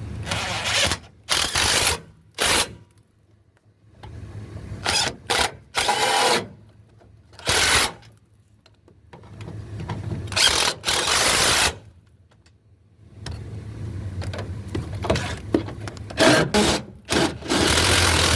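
Power tool run in short bursts of varying length, with pauses between and a longer stretch of bursts near the end, tightening the nuts on a truck's fuel-tank strap.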